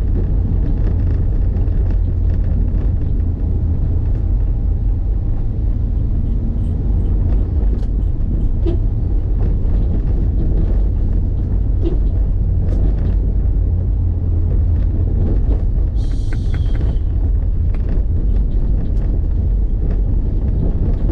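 Steady low rumble of a moving vehicle ride. About sixteen seconds in there is a brief high hiss.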